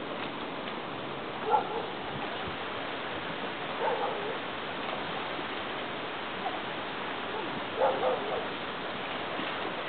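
Three short animal calls, a few seconds apart, over a steady hiss.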